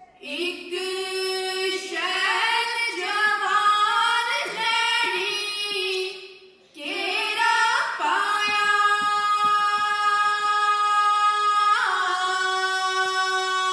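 Women singing a Punjabi folk song live into stage microphones, with no drum beat, drawing out long held notes; the singing breaks off briefly about six and a half seconds in and then resumes.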